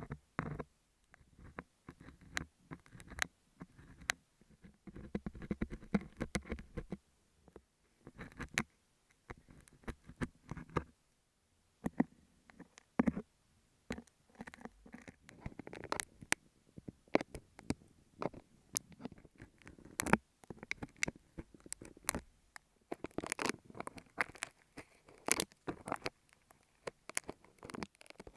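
Beeswax sheet scraped, pressed and rubbed against earphone microphones: a rapid, irregular run of sticky crackles, clicks and scratches with short pauses.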